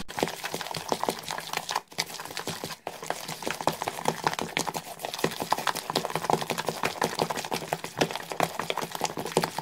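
Spoon stirring a thick, wet spice-and-yogurt marinade paste in a plastic bowl: a fast, continuous run of scraping clicks against the bowl, broken by two short pauses about two and three seconds in.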